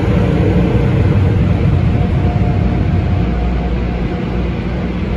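Car wash air dryers blowing steadily over the truck, heard from inside the cab, with a low rumble under a loud, even rush of air that eases a little in the second half.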